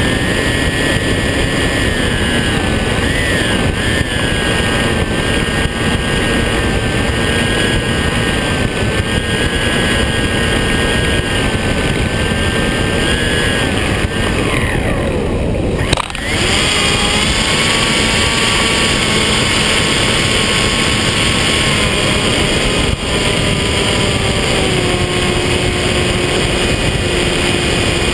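Onboard sound of a small foam FPV plane in flight: the electric motor and propeller whine over heavy wind rush, wavering in pitch with the throttle. About fifteen seconds in the whine drops away, there is a sharp knock, and it picks up again at a lower, steadier pitch.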